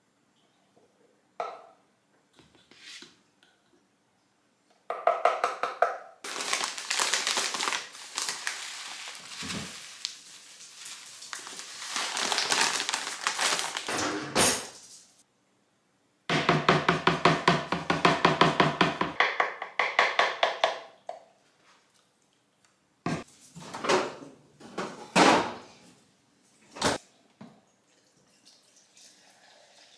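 Kitchen prep handling sounds in short, abruptly cut pieces while smoothie ingredients go into a blender jar: knocks and clatter of containers and utensils, with a longer noisy stretch in the middle.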